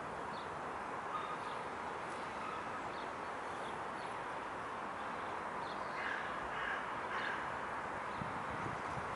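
Crows cawing, with about three caws in a row about two-thirds of the way through, over a steady background noise.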